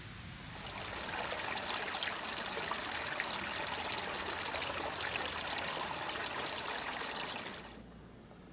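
Water of a stream running and splashing as a steady rush, starting about a second in and cutting off abruptly about a second before the end.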